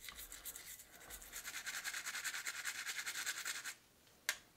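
Toothbrush bristles scrubbing a wet diecast car base in degreaser, in fast back-and-forth strokes, to work off flaking chrome; the scrubbing stops suddenly near the end and is followed by a single sharp click.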